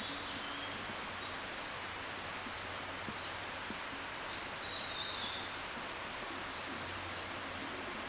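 Ruddy kingfisher calling: the tail end of one call right at the start, then one full falling call about four and a half seconds in, over a steady background hiss.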